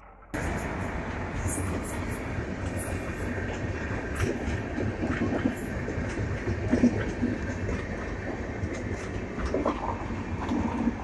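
Indian Railways passenger train of red LHB coaches passing at speed on the adjacent track: a steady rumble of wheels on rail, scattered with short clicks and clacks. The sound comes in abruptly just after the start.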